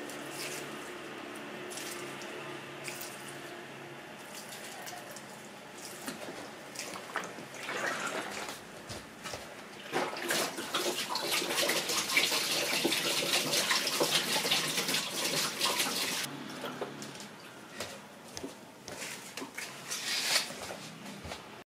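Water poured from a plastic jug onto a potted plant's soil, then, about ten seconds in, the leftover water splashing loudly into a sink for about six seconds, followed by a few light knocks.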